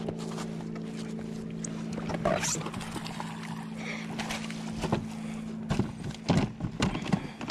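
A bass is landed beside a kayak: a steady low hum runs under water sloshing and scattered knocks, then splashes and sharp knocks of the fish thrashing as it is netted and lifted aboard become frequent near the end. The hum stops about seven seconds in.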